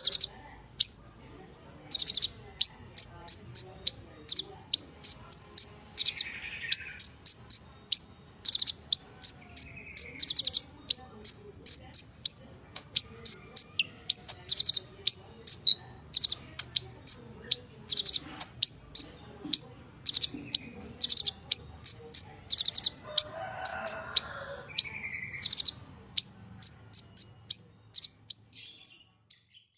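Purple-throated sunbird (kolibri ninja) singing: a fast, unbroken run of short, sharp, high chirps and clipped notes, a few each second, pausing briefly just after the start.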